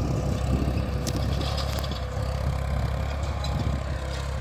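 Eicher tractor's diesel engine running steadily, a deep low hum with a few light clicks over it.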